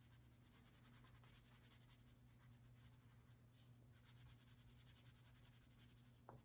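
Faint scratching of a wax crayon rubbed back and forth over paper, colouring in an area.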